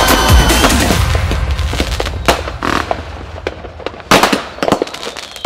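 Firecrackers going off in a quick, irregular string of sharp cracks and pops, with one louder bang about four seconds in. Music fades out at the start.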